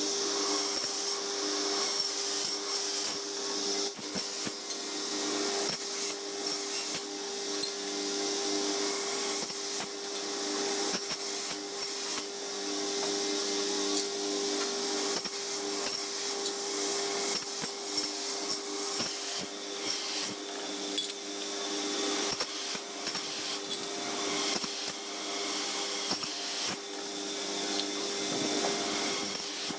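A power tool running steadily with a constant hum, over frequent sharp clicks and taps of work being handled.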